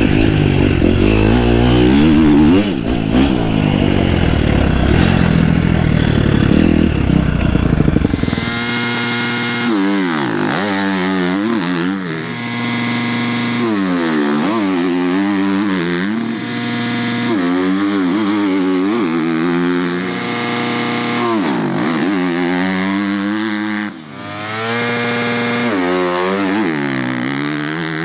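KTM motocross bike engine. At first it is ridden hard on the track. From about eight seconds in it revs up and down over and over, one rise and fall every second or two, while the bike sits on the starting gate.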